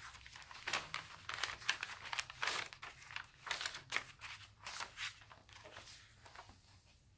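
Paper pages of a handmade journal being turned and handled: a run of dry paper rustles and crinkles that thins out over the last second or two.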